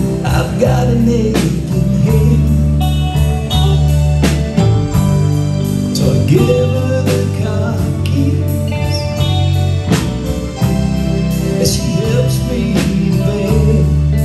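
Live band playing an instrumental break: an electric lead guitar with bending notes over sustained keyboard chords, bass and a steady drum beat.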